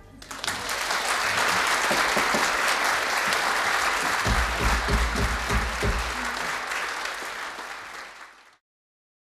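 Concert-hall audience applauding: the clapping swells in within the first half second, holds steady, then fades and cuts to silence about eight and a half seconds in.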